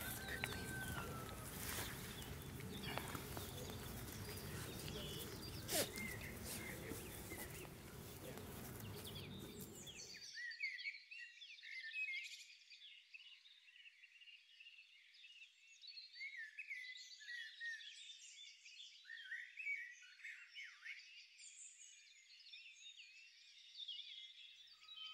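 Outdoor rustling with a few sharp clicks, which cuts off abruptly about ten seconds in. After that only thin, high birdsong chirping is left, with nothing in the low range.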